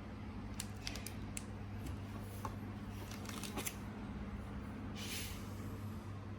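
Small sharp clicks and taps of handling laptop parts, in a few clusters, with a short scraping slide about five seconds in, over a steady low hum.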